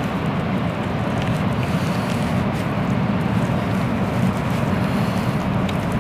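Steady low rumble of wind buffeting the microphone, holding an even level with no breaks.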